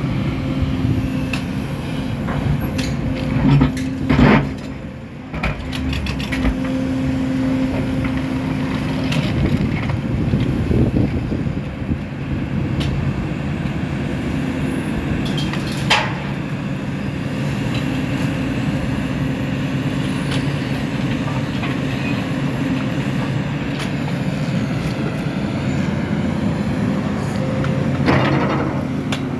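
Sumitomo SH300 hydraulic excavator's diesel engine running steadily under load as it digs and swings soil into a dump truck, with a few sharp knocks and thuds of the bucket and soil, the loudest about four seconds in.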